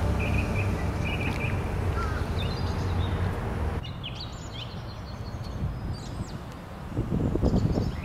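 Outdoor pond ambience with small birds giving short high chirps and whistles scattered throughout. A low rumble, from wind or handling, runs under the first half and drops out about four seconds in, and a louder rough sound comes in near the end.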